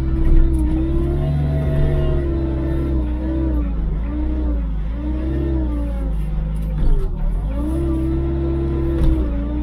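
Small wheel loader's diesel engine running steadily, its pitch dipping and rising again several times as the machine turns and works.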